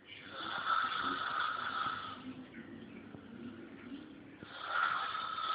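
A boy snoring loudly: two long snoring breaths, one at the start and another about four and a half seconds in, with a quieter, lower sound between them.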